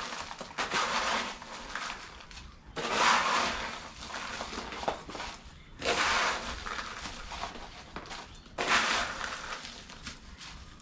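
Ice being handled and packed into a freshly caught northern bluefin tuna's belly cavity, crunching and rattling in about four separate bursts. It is packed to chill the fish from the core.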